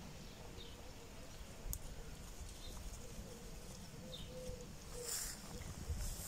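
Fallow deer grazing close by, faintly tearing and chewing grass, with a few faint bird chirps.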